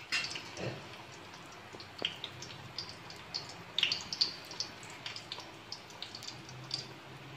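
Ready-made chicken burger patties frying in shallow oil in a pan: a faint sizzle with irregular small pops and crackles of spitting oil, a few each second.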